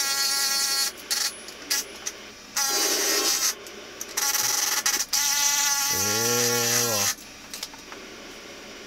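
Cordless drill running in three bursts of steady motor whine: the first stops about a second in, then a short burst of about a second and a longer one of about three seconds that speeds up and winds down, with a few clicks between.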